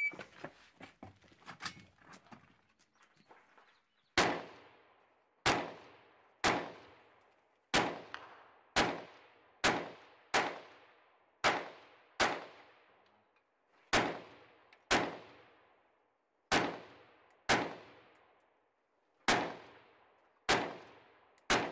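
Semi-automatic AR-15-pattern rifle (Uronen Precision UR-15 with a three-chamber compensator) fired as single aimed shots: sixteen shots at roughly one a second, unevenly spaced, beginning about four seconds in, each with a trailing echo. Before the first shot come a few light clicks and knocks as the rifle is handled.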